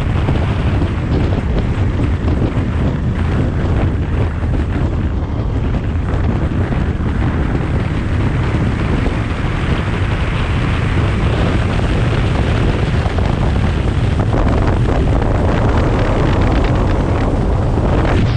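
Wind buffeting the microphone of a motorcycle cruising at road speed, a deep, steady rush of wind and road noise.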